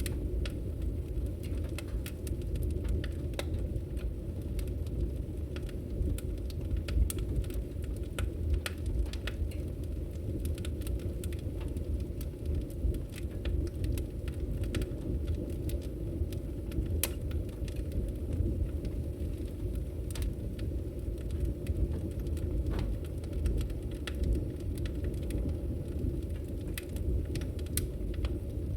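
Wood fire burning in a fireplace: a steady low rumble of the flames with scattered crackles and sharp pops throughout.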